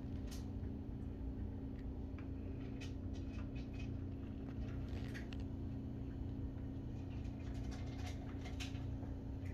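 Steady low hum with scattered faint irregular clicks and ticks.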